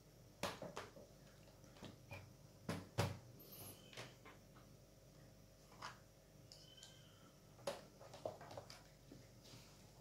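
Victorinox Altmont laptop backpack being carried and handled: faint, irregular knocks and rustles from its fabric and dangling straps, the sharpest knock about three seconds in.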